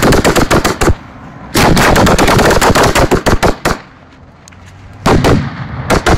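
Fireworks going off at close range in rapid strings of sharp bangs, many per second. The bangs stop briefly about a second in, start again, then pause for about a second near the four-second mark before resuming.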